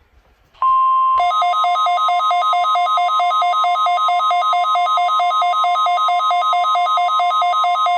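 NOAA Weather Radio's steady 1050 Hz warning alarm tone sounding loudly, starting about half a second in. From about a second in, a fast, evenly repeating two-pitch beeping runs over the tone, like a weather-alert receiver's alarm.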